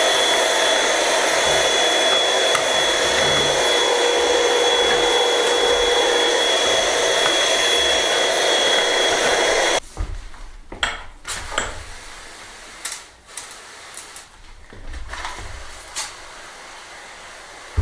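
Handheld vacuum cleaner running steadily with a high whine, sucking dust out of a chipped hole in a stone wall. It cuts off suddenly about ten seconds in, leaving scattered knocks and clicks.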